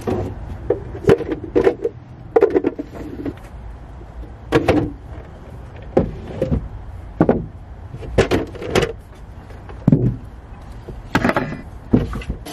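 Shopping items being loaded into a car's carpeted cargo area: irregular knocks, thuds and short rustling clatters as boxes and plastic storage bins are set down and shifted, over a steady low rumble.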